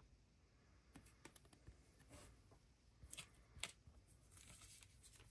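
Near silence, with a few faint ticks and soft rustles of a trading card being turned over in the fingers.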